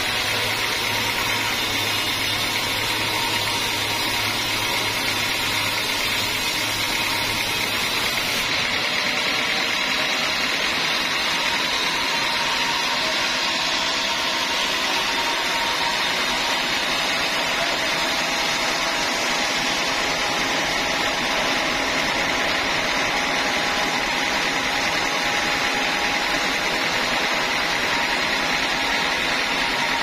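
Home-built band sawmill running and sawing through a hard teak log: a steady, continuous machine noise of blade and motor with a faint steady tone. A low hum drops away about eight seconds in.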